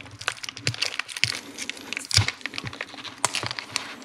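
Thin shrink-wrap plastic crinkling and crackling as it is peeled off a new chrome horse-and-bars grille emblem: a run of irregular small crackles with one louder snap about two seconds in.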